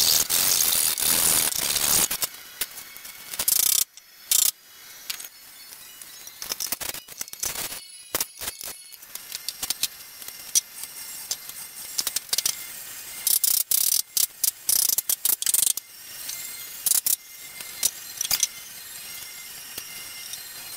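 A hand chisel scraping and paring a pine beam for about two seconds, then scattered short clicks and knocks.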